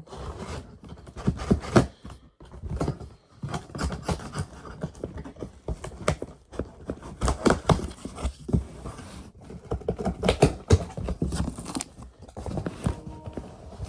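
A heavily taped shipping package being cut and torn open by hand: irregular ripping, scraping and rustling of tape and wrapping.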